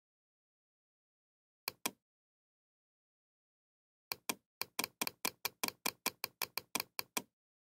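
Sharp clicks from scrolling a document on a computer: a quick pair about two seconds in, then a rapid run of about fifteen clicks, roughly five a second, starting about four seconds in.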